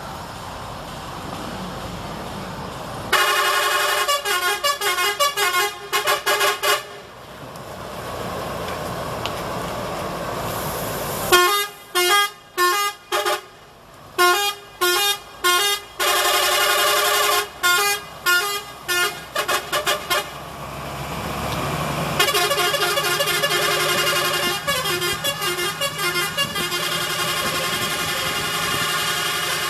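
Telolet bus horn on a Saztro Holiday coach playing quick melodic multi-tone phrases, in three long bursts starting about three seconds in, about eleven seconds in and about twenty-two seconds in.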